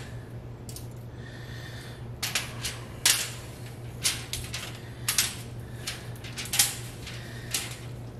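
Wooden toothpicks being pulled from a bacon-wrapped pork loin and tossed onto aluminium foil: a scattered series of sharp light clicks and foil crinkles, starting about two seconds in.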